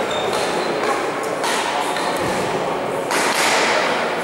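Badminton rally in a sports hall: rackets striking the shuttlecock and thuds of players' footwork on the court, ringing in the hall, with a murmur of background chatter.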